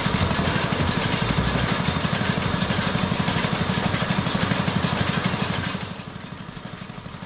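An engine running with a rapid, even pulse and a hiss of noise over it, dropping noticeably in level about six seconds in.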